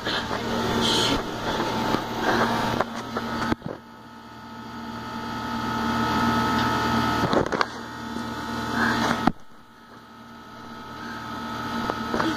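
A steady low mechanical hum, with rustling and knocks from the phone being handled for the first few seconds and a couple of sharp clicks later on.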